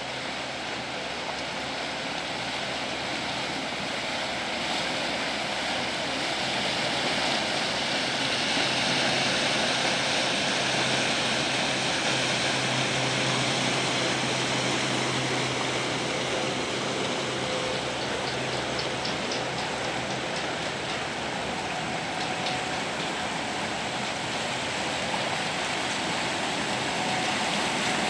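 Steady rushing and churning of canal water pushed along the hull of a passing inland push convoy, a motor cargo ship pushing a lighter barge. The rush swells over the first several seconds, and a low engine hum is strongest around the middle.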